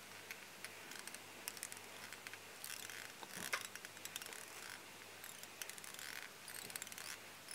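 Faint scattered ticks and short scratchy swishes of fly-tying thread being wrapped and pulled tight over a bunch of deer hair on the hook, with a few stronger rasps about three seconds in and again near the end.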